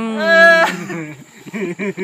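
People laughing: a loud, high-pitched squeal of laughter at the start, then shorter laughs near the end.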